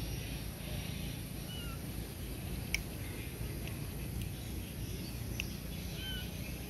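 Baby macaque giving two faint short squeaks a few seconds apart over a low, steady outdoor rumble, with one sharp click near the middle.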